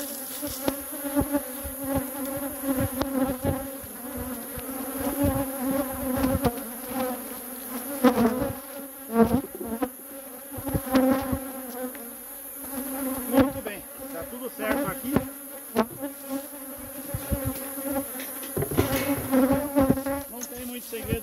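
Honeybees buzzing close around the microphone: a continuous hum that wavers in pitch as bees fly past. Scattered knocks and clicks come from the wooden hive box, its frames and lid, as it is worked and closed.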